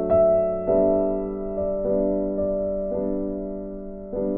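Background music: slow piano notes and chords, each struck and left to fade.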